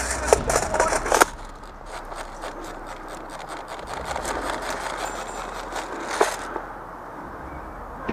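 Dry leaves, twigs and brush crunching and rustling as a player moves through undergrowth, with gear and a rifle knocking. Dense crackling in the first second, then softer scattered crackles, and one sharp click about six seconds in.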